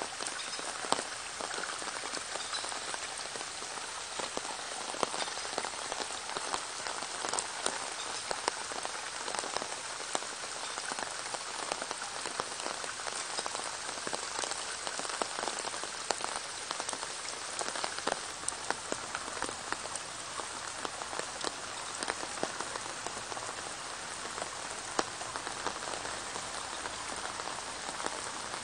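Rain falling steadily on a muddy puddle and on garden foliage: an even hiss dotted with many small ticks of single drops striking the water.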